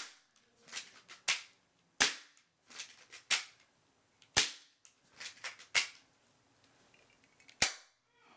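Taurus PT92 replica airsoft pistol firing BBs into a paper target: about seven sharp snaps at uneven intervals of one to two seconds, with fainter clicks between them.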